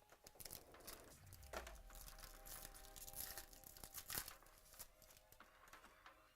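Trading card box packaging and pack wrapper being torn open and crinkled by hand, a quiet run of irregular crackles and rustles.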